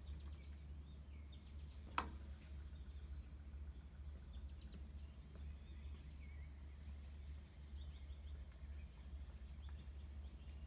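Small birds chirping and whistling faintly in short calls over a steady low hum. A single sharp click about two seconds in.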